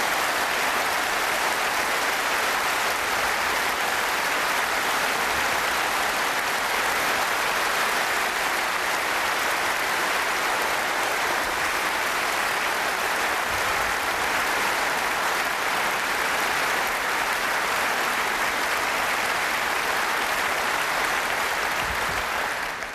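A large conference-hall audience applauding steadily and at length, dying away near the end.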